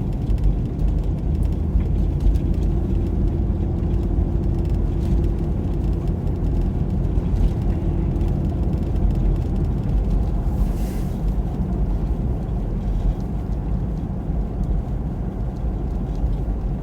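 Steady low rumble of a car driving on a snowy road, heard from inside the cabin: engine and tyre noise. A faint steady hum runs through the first half, and there is a brief hiss about eleven seconds in.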